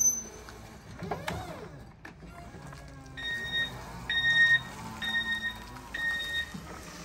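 Toyota forklift's reversing alarm beeping four times at an even pace, each beep about half a second long, as the forklift backs away carrying a raised pallet.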